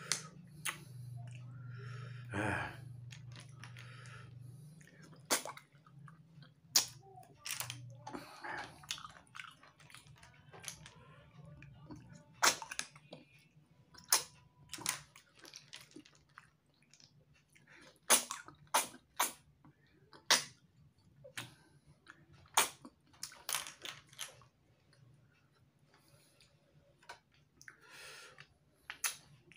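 Wet sucking slurps and lip smacks as cooked field snails in spicy sauce are sucked out of their shells, coming irregularly, a few every several seconds.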